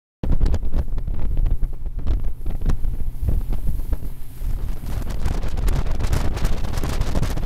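Wind buffeting the microphone on a boat out on the lake: a loud, low, gusty rumble with crackle, cutting in suddenly just after the start.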